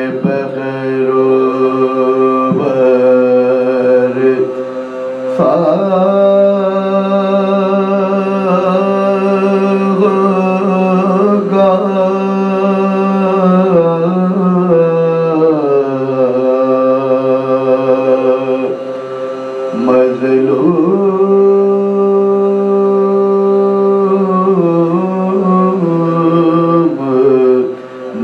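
Soz khwani: men's voices chanting an unaccompanied Urdu lament in long, drawn-out phrases with held, wavering notes. The voices pause briefly for breath between phrases.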